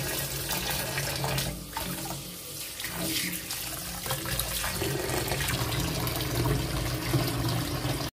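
Kitchen tap running steadily into a stainless-steel sink basin full of water and vegetables, the stream splashing as a bunch of coriander is rinsed under it.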